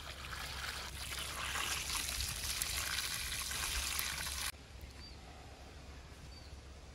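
Water pouring in a stream onto charred, fire-roasted eggplants in a large metal tray, splashing over the skins to cool them for peeling. The pouring stops abruptly about four and a half seconds in.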